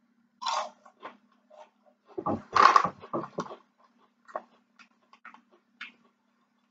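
Ruffles potato chips being chewed and the foil chip bag crinkling: irregular crisp crackles, with a louder spell of crunching about two seconds in.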